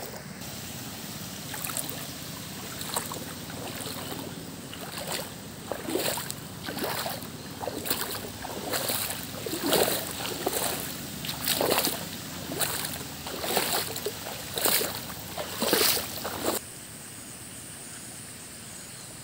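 Flood water splashing in a regular rhythm, about one splash a second, over a steady rush of water. The splashing stops abruptly near the end, leaving a quieter, even hiss.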